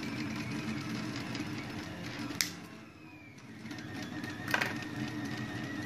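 Two sharp clicks about two seconds apart from hands handling a quadcopter's wiring and parts, over a steady low hum.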